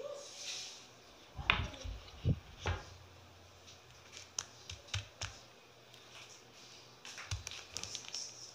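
Scattered light knocks and taps of things being handled on a table, about a dozen short clacks over several seconds, the loudest a few in quick succession in the first three seconds.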